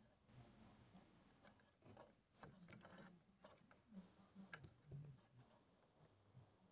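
Near silence, with a few faint scattered clicks and taps of handling.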